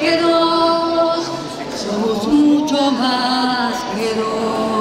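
Singing voices holding long, slowly changing notes, with no instruments standing out.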